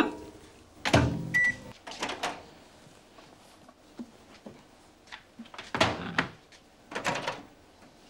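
Microwave oven door shut and the oven set going: several clunks and clicks, with a brief high tone about a second and a half in.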